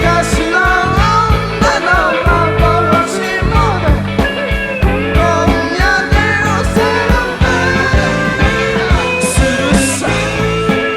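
Rock band playing a song: drums keep a steady beat under a wavering lead melody, with cymbal crashes twice near the end.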